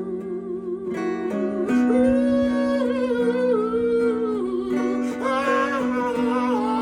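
A bluegrass string band plays an instrumental break between verses. Acoustic guitar and held low notes sit under a lead melody line that wavers and slides in pitch.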